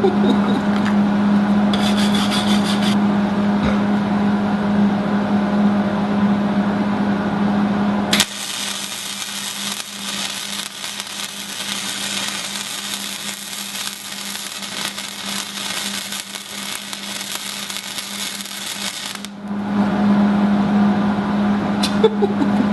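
Small wire-feed welder running a bead: a loud steady arc buzz with crackle for the first several seconds, then about eleven seconds of quieter crackling hiss, and the buzz returns near the end.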